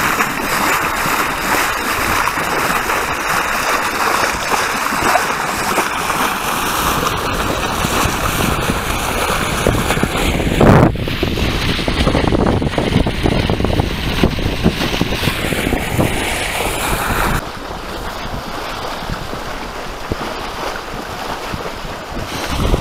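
Water rushing and splashing along the hull of a Sunstar 28 sailboat under way, with wind buffeting the microphone. There is one louder thump about eleven seconds in, and the sound goes quieter and duller from about seventeen seconds in.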